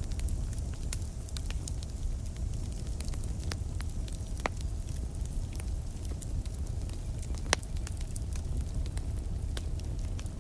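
Campfire crackling, with frequent small pops over a steady low rumble of the flames. A louder pop comes about seven and a half seconds in.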